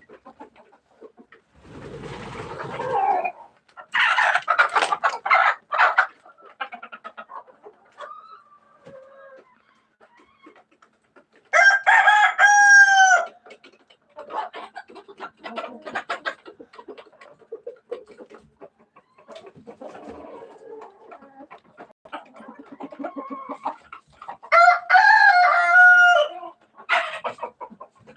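A rooster crowing twice, each crow about two seconds long, with chickens clucking in the stretches between.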